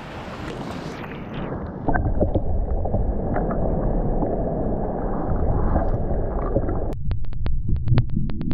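Muffled, steady rush of wind and surf buffeting the microphone at the water's edge. About seven seconds in it cuts abruptly to a quieter bed with a quick run of sharp ticks, about five a second.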